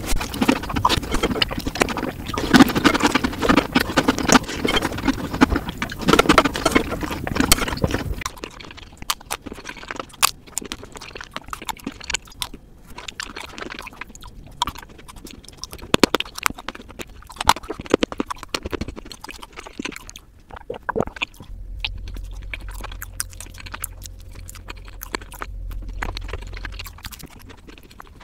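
Close-miked eating sounds played fast: a spoon working through chocolate cake soaked in melted chocolate ice cream in a glass bowl, with rapid scraping, slurping and chewing running together, dense and loud. After about eight seconds it drops to quieter, scattered clicks and mouth sounds from eating chocolate desserts, with a low hum under the last few seconds.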